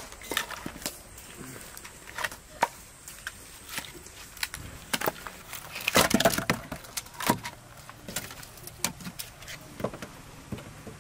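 Split firewood logs knocking and clattering against one another as they are handled and laid into a clay oven, with a dense run of wooden knocks about six seconds in the loudest.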